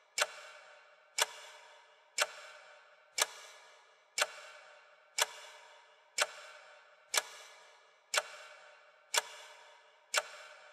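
Clock-tick sound effect: one sharp tick every second, each ringing and echoing away before the next.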